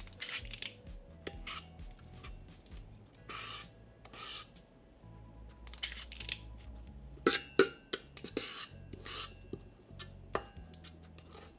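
Spring-loaded portion scoop scraping thick cake batter and releasing it into paper cupcake liners in a metal muffin tin: a run of short scrapes and rasps with a few sharp clicks, the loudest clicks just past the middle.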